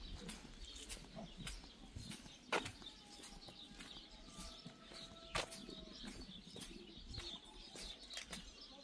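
Faint bird calls over a quiet background, with a few sharp knocks, the loudest about two and a half and five and a half seconds in.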